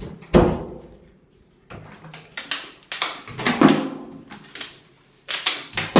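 A plastic water bottle being flipped and landing again and again on a marble countertop: a string of sharp knocks and clatters, the loudest about a third of a second in.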